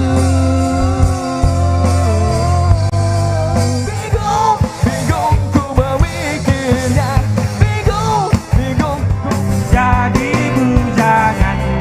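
Rock music with a drum kit and a steady bass under a bending melody line.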